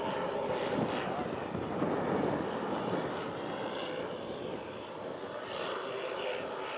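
The twelve small OS model engines of a 1:10 scale Dornier Do-X flying boat model drone together steadily as it flies past.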